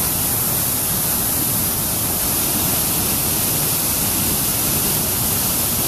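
Sol Duc Falls, several channels of whitewater plunging into a narrow rock gorge: a loud, steady rush of falling water.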